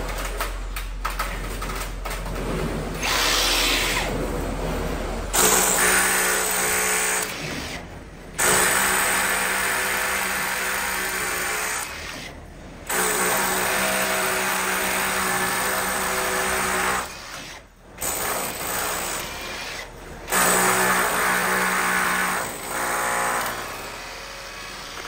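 Cordless rotary hammer drill boring into a masonry wall, run in a series of bursts of one to four seconds with short pauses between them.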